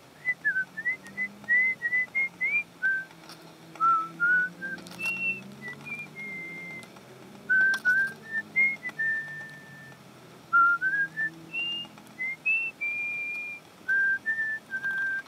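A person whistling a tune: clear single notes, some held and some sliding up or down, with a few short knocks.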